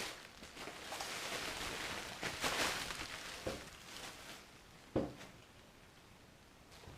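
Packaging wrap crackling and rustling as it is unwound from around an amplifier, loudest near the middle, followed by a single knock about five seconds in.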